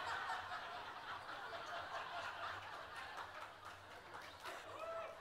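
Low murmur of an audience talking and chuckling.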